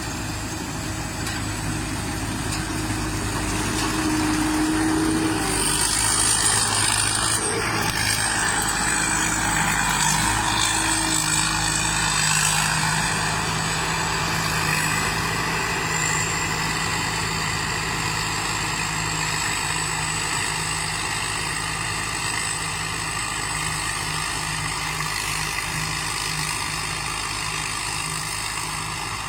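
Combine harvester running: a steady engine drone with machinery noise. It grows louder for several seconds from about four seconds in, and the engine note steps up slightly in pitch about ten seconds in.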